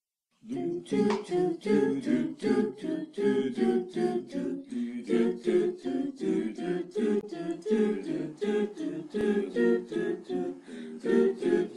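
A cappella vocal group singing short rhythmic chords, about three a second, coming in half a second in.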